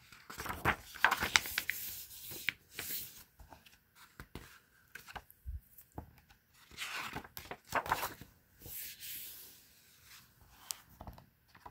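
Pages of a hardcover picture book being turned and pressed flat by hand: paper rustling and sliding in a few bursts, with light ticks and taps.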